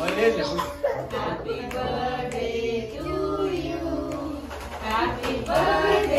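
Music with a singing voice: long held, wavering sung notes over accompaniment.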